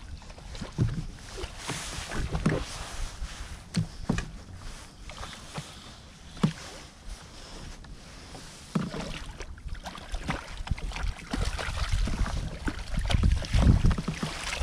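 Choppy water slapping against the hull of a Hobie Outback fishing kayak, with wind buffeting the microphone and frequent short knocks of gear on the hull. The knocking and water noise grow busier and louder near the end as a landing net goes into the water beside a hooked fish.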